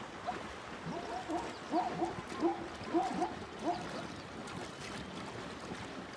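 Water sloshing and gurgling as ostriches bathe in a shallow rain-filled pool, with a run of short pitched gurgling notes between about one and four seconds in.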